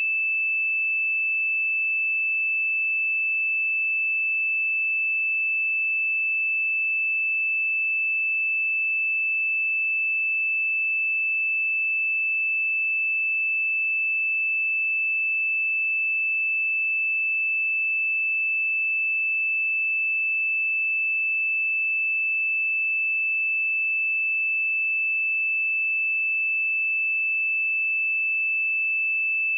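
A steady pure sine tone at 2634 Hz, a single high pitch held at an even level throughout: a test tone for checking speakers or headphones.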